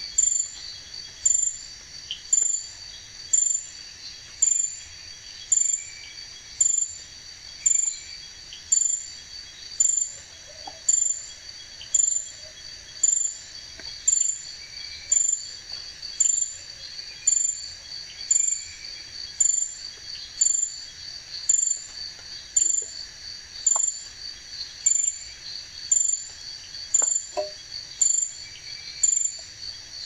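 Night insects chirping in a steady, even rhythm, about three high-pitched chirps every two seconds, with a few faint clinks of clay crockery being handled.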